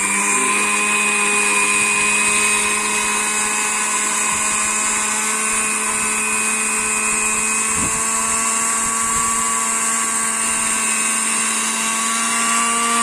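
Electric spice grinder running steadily as it grinds whole white cumin seeds coarsely: a loud, even motor whine that spins up right at the start.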